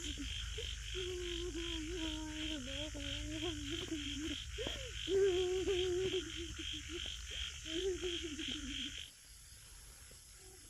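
Night chorus of frogs and insects: a steady high buzz and a pulsing call about three times a second over a low hum. A loud wavering, drawn-out low tone sounds over the chorus, and the whole bed cuts off suddenly about nine seconds in.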